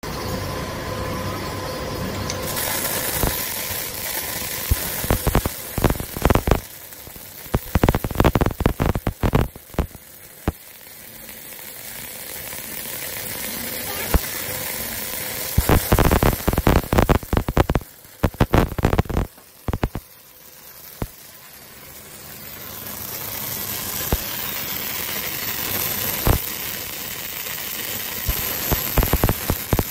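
Robotic welding arc crackling and sizzling in stretches of a few seconds, with a smoother, steadier hiss between them.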